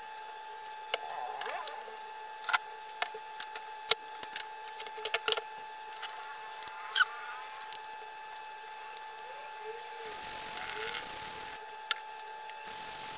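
Sharp clicks and knocks of plastic-and-metal bar clamps and a wooden board being handled on a workbench, bunched in the first half. A faint steady whine runs underneath, and a soft rubbing hiss comes near the end.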